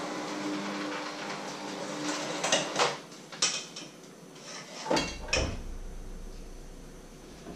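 Electric hand mixer running steadily in a bowl, then tailing off about two seconds in, followed by a handful of sharp clatters against the bowl.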